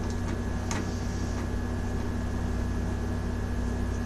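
Steady low electrical hum with background hiss, with two faint clicks about half a second in.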